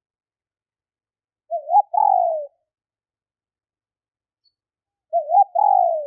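Female spotted dove cooing: two calls about three and a half seconds apart, each a couple of quick rising notes followed by a longer falling coo.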